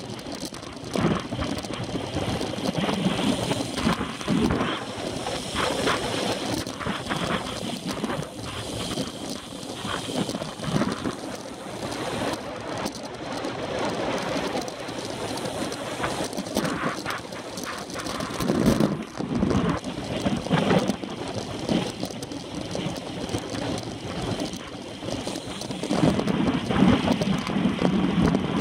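Wind buffeting the microphone on a road bike ridden at race pace, over a steady rush of tyre and road noise. Irregular knocks and rattles come from the bike over the pavement.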